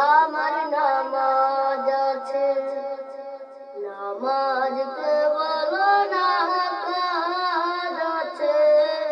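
Wordless vocal humming of a Bangla gojol (Islamic devotional song), layered voices carrying a gliding melody over a held drone note, with a brief break about four seconds in.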